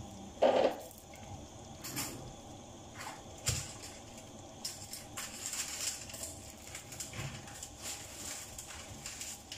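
Scattered faint clicks and rustles of kitchen handling, with one louder knock about half a second in and a few sharper clicks after it.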